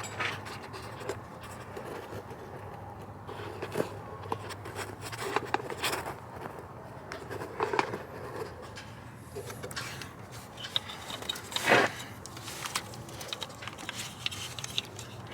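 Scattered clicks, scrapes and rustles of hands working around the engine bay at the sensor's wiring connector, over a faint low hum, with one louder knock about twelve seconds in.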